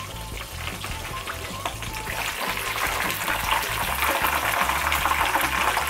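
Breaded boneless chicken sizzling in hot oil during its second fry, the sizzle growing louder from about two seconds in as the chicken is lifted from the oil. Background music plays under it.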